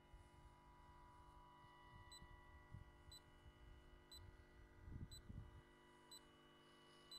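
Near silence: a faint low rumble that swells briefly about five seconds in, with faint ticks about once a second.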